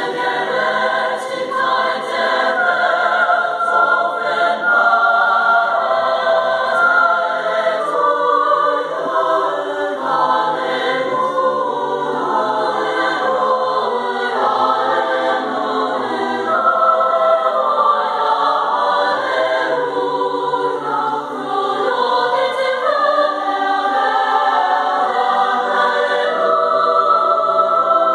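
High school choir singing in several parts, with sustained, changing chords under a conductor's direction.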